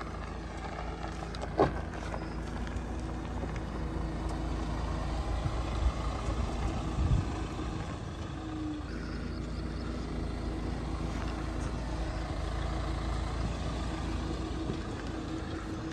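Mahindra Thar 4x4's engine running at low revs as the vehicle creeps down a dirt slope and drives slowly past, over a low rumble. A few short knocks come through, about two seconds in and again around six and seven seconds.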